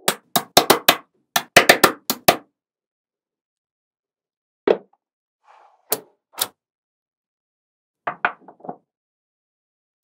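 Blocks of small magnetic balls clicking and clacking as they snap together and are pressed into place. Quick runs of sharp clicks in the first two and a half seconds, then a few single clicks and a short burst of clicks near the end.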